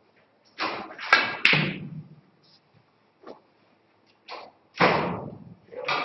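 Snooker balls knocking: a burst of sharp ball-on-ball clicks and duller thuds about a second in, then a few more scattered knocks and a heavier thump near the end.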